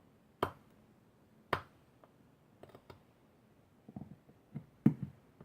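Knife working a notch into a Western red cedar hearthboard: two sharp clicks early on, a few fainter ones, then a cluster of duller knocks of wood and blade being handled.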